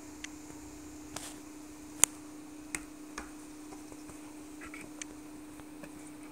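Scattered light clicks and taps of a kitten's paws and claws on a plastic scratcher toy with a cardboard pad, the sharpest one about two seconds in, over a steady low hum.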